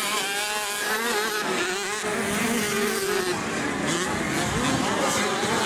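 Small 65cc two-stroke motocross bikes running on the track, their high, buzzy engines rising and falling in pitch as the riders open and close the throttle.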